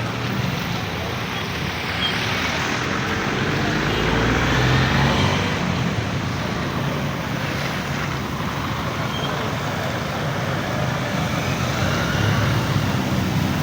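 Road traffic: vehicle engines running and passing at a flooded junction, in a continuous rumble that swells about four to five seconds in and again near the end.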